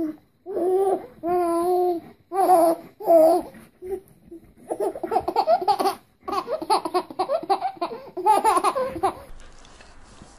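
Voice sounds: a few short, held cooing notes, then several seconds of rapid, choppy laughter-like sounds that stop abruptly near the end.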